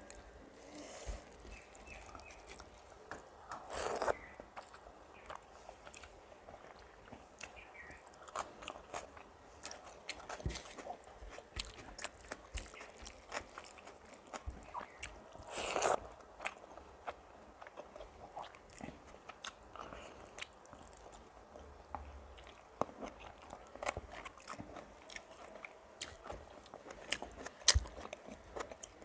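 Close-up eating sounds: chewing, crunching and wet mouth clicks from a mouthful of rice with fried vegetables and curry. Two louder, noisier moments come about four and sixteen seconds in.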